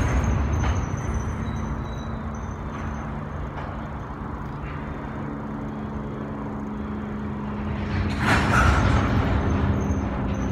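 BNSF grain train's covered hopper cars rolling slowly over a steel truss bridge: a steady rumble of wheels on the rails with a low hum and a faint, thin high squeal. A louder rushing surge swells up about eight seconds in and fades.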